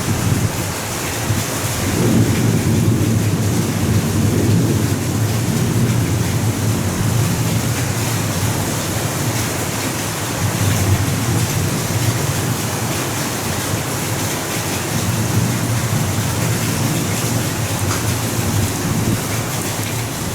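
Heavy downpour hissing steadily under rolling thunder, a low rumble that swells about two seconds in and goes on for several seconds before easing.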